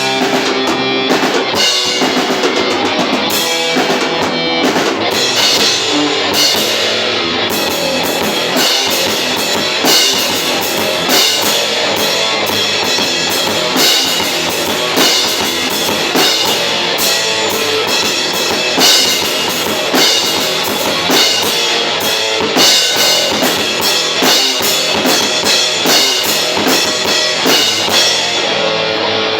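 Experimental metal band playing live at rehearsal: electric guitar and bass over a driving drum kit with heavy cymbals, with steady, regular accents.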